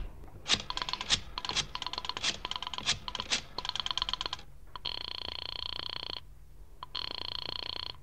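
A rotary telephone being dialled, its dial clicking through several digits, then two rings of the line ringing at the other end, each about a second long with a short pause between. This is a sound effect in an old radio drama.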